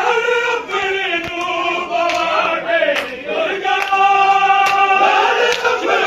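Men's voices chanting a mourning lament (noha) together, with sharp chest-beating slaps about once a second.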